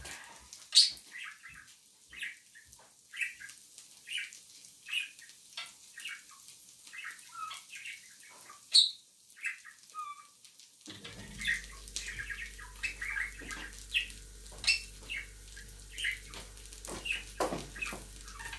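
Small pet birds in a cage chirping repeatedly in short calls, with two louder sharp sounds about a second in and near nine seconds. About eleven seconds in a steady low hum starts up underneath.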